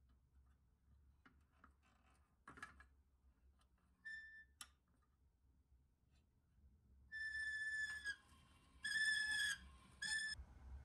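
A high, steady whistling tone at one unchanging pitch: a brief chirp, then three held notes, the first about a second long and the last shortest. A few soft clicks come before it.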